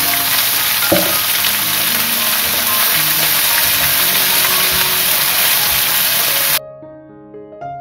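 Oil sizzling loudly in a pan as sliced squash is stir-fried with shallots and garlic, with one knock about a second in. The sizzle cuts off abruptly near the end, leaving soft piano music that was faintly underneath it.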